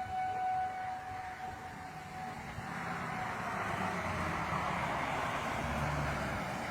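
An outdoor civil-defense warning siren holds a steady tone that fades away over the first few seconds. From about halfway through, a loud rushing roar of wind with low rumbling builds and stays.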